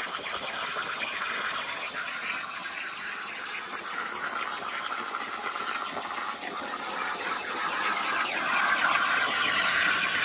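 Plasma torch on a DIY CNC plasma cutter cutting steel plate: a steady hissing arc, getting louder about eight seconds in.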